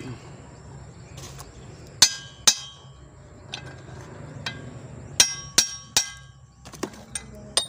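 Claw hammer striking the steel yoke of a Toyota Kijang propeller shaft to drive a new cross joint (universal joint) into place. The sharp metallic strikes ring on: two about two seconds in and three more about five seconds in, with lighter clinks between.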